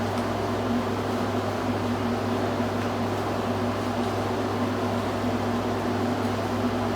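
Steady low hum with an even hiss of room background noise, unchanging throughout.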